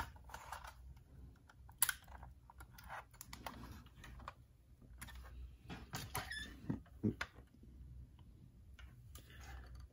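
Faint, irregular small clicks and taps from a diecast model Porsche Cayenne being handled: its opening door and bonnet are moved on their hinges and the model is set down on a table.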